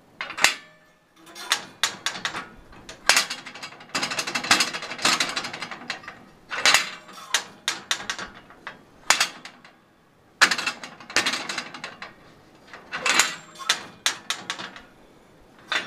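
Steel egret-silhouette target plate tipped back and stood up again on its pivot mechanism, clanking and rattling metal on metal in repeated bursts a second or two apart.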